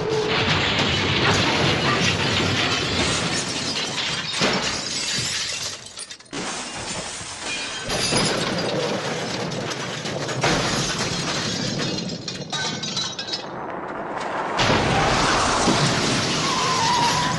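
Cartoon crash and smash sound effects cut back to back: long, dense stretches of crashing and shattering, with abrupt changes about 6, 8, 10 and 14 seconds in.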